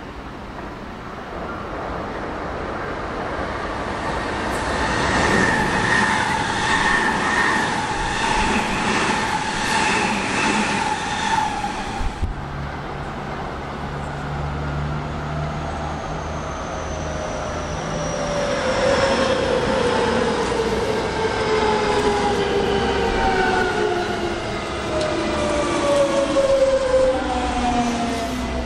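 Electric commuter trains: first a train running past with a steady motor whine and a rhythmic clatter of wheels over rail joints, breaking off abruptly about twelve seconds in. Then a JR West commuter electric multiple unit comes in with a low hum and several motor whines falling steadily in pitch as it slows, passing close by near the end.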